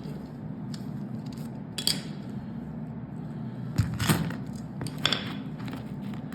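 Light metallic clicks and clinks, a few times, from .22 LR rimfire cartridges being handled, over a steady low hum.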